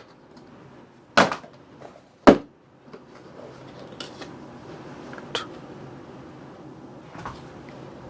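Packaging and a computer mouse being handled on a desk during unboxing: two loud knocks about a second and two seconds in, then a few lighter taps.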